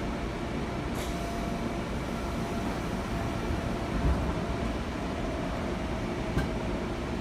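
Seibu Tamagawa Line train heard from inside the car: a steady low rumble with a faint even hum and a couple of light clicks.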